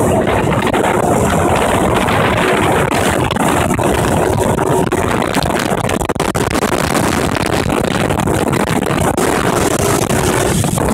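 Motorboat engine running steadily at speed while towing, mixed with a loud rush of wake water and wind on the microphone.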